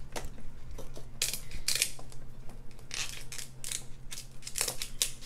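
King crab leg shell being cracked and broken apart, a series of about half a dozen sharp crunching cracks.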